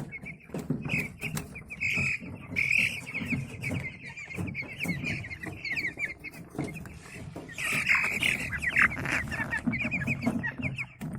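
A brooder full of broiler chicks peeping, many at once, with louder bursts of peeping about two seconds in and again around eight to nine seconds in. The flock has a respiratory illness that makes them wheeze, cough and sneeze, and antibiotics have not cleared it.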